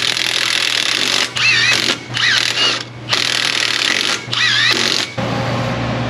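Brake-cleaner sprayer hissing in repeated bursts of about a second each, several with a wavering whistle, stopping about five seconds in. A steady low shop hum runs underneath.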